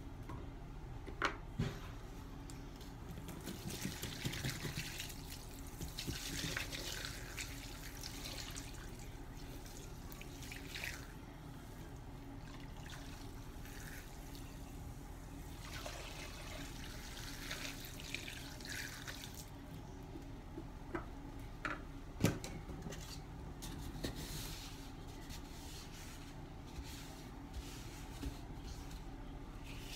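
Liquid pine cleaner poured from a plastic jug onto sponges in a sink, splashing in several separate pours. A few sharp knocks of the jug being handled, the loudest about two-thirds of the way in.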